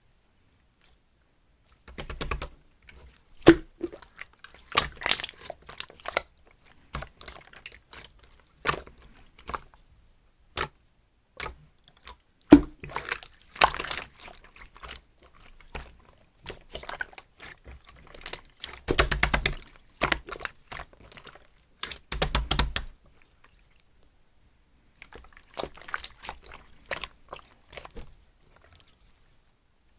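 Clear slime mixed with strawberry add-in parts being squished, stretched and poked by hand, making sticky clicks and crackles in irregular bursts with short pauses between.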